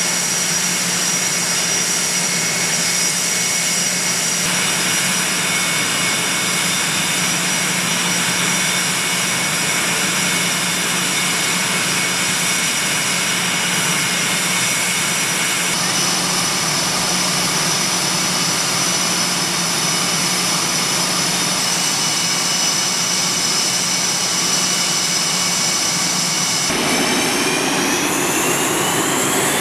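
F/A-18 Hornet jet engines running on the ground: a steady high whine made of several held tones over a low hum. Near the end the whine rises in pitch.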